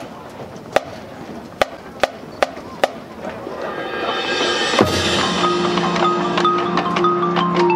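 Marching band show opening: a handful of sharp clicks, then a cymbal swell that builds to a low drum hit about five seconds in. After the hit come a held low chord and repeated mallet-percussion notes from the front ensemble.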